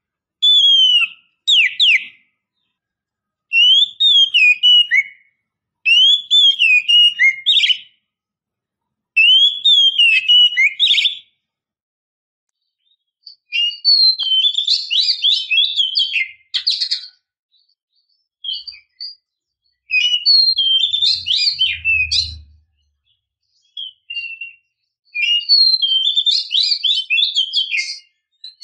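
Oriental magpie-robin (kacer) singing: short phrases of rapid, sliding whistled notes with pauses between them, busier and more varied in the second half. The uploader says this is a female in breeding condition calling to males. A dull low thump comes about 22 seconds in.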